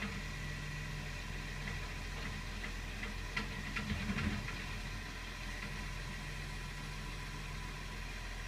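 Garbage truck's engine idling steadily, heard from inside a car, with a short cluster of clanks from the bin lifter and bin between about three and four seconds in.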